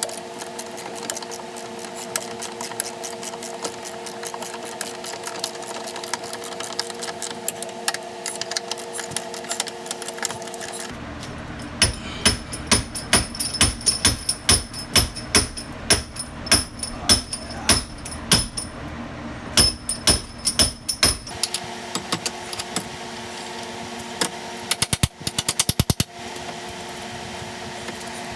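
Cordless impact wrench running and hammering the track bar bracket bolts tight, a steady whirring hum with rapid rattling blows. For about ten seconds in the middle it gives way to a run of sharp metallic knocks, about two a second, before the steady hammering returns.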